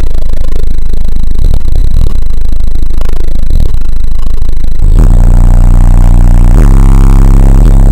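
Loud, deep bass music from two Power Acoustik 15-inch subwoofers in a custom ported box tuned to about 30 Hz, driven hard enough to overload the microphone. A framed picture on the wall rattles with it. The bass line shifts to new notes about five seconds in.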